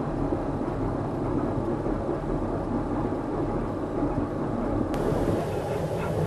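Large motor cruiser's inboard engines running with a steady low rumble, apparently just after a cold start. A few faint clicks near the end.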